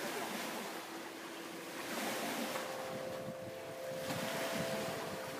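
Wind harp (aeolian harp) strings sounding steady tones in the wind: a low tone fades out about a third of the way in, and two higher tones come in about halfway and hold. Behind them is a constant rush of wind on the microphone and water.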